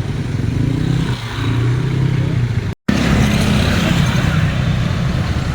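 Bus engine running close by, steady and low, with a short dip about a second in. The sound breaks off for an instant near the middle at an edit cut and picks up again as engine and traffic noise.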